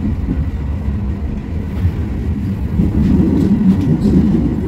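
Cologne Stadtbahn light-rail car running, heard from inside: a steady low rumble of wheels on rails and motors, growing louder about three seconds in.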